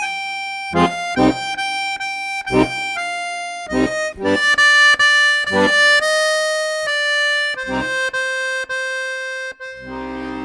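Accordion playing a slow, sustained melody in held notes over short, regular bass-and-chord strokes on the beat. Near the end a low, full chord comes in and is held.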